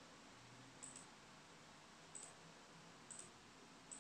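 Faint, sharp clicks of a stylus tapping on a tablet screen, four or five spread out over a few seconds.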